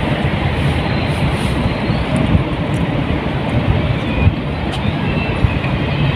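Sea waves and surf washing steadily, a continuous rushing noise over a low, restless rumble.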